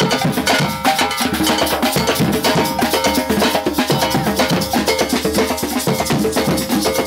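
Music with fast, steady percussion: repeated drum and metallic strikes over sustained pitched notes.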